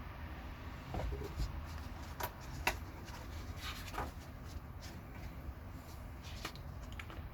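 Pages of a hardback book being handled and turned, with soft paper rustles and a few light clicks and taps.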